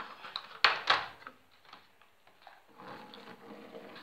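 Plastic makeup palettes being handled and set down on a tabletop: two sharp clacks about a second in, a few lighter clicks, then a stretch of sliding and rustling near the end.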